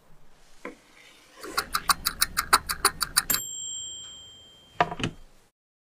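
Kitchen timer ticking rapidly, about six sharp clicks a second for nearly two seconds, then a bright bell ding that rings on and fades, the signal that the cooking time is up. Two short knocks follow near the end.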